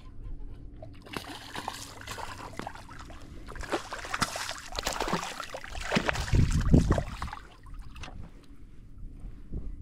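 Water splashing and sloshing in shallow water, a busy run of splashes that is loudest about six to seven seconds in and then dies down.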